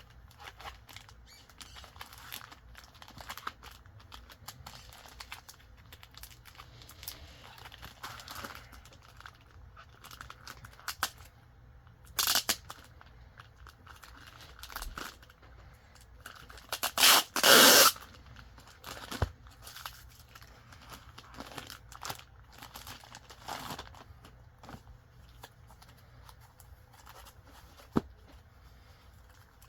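Parcel packaging being opened by hand: paper and tape tearing and crinkling, with scattered handling clicks. There is a short rip a little before the middle and a longer, louder rip past the middle.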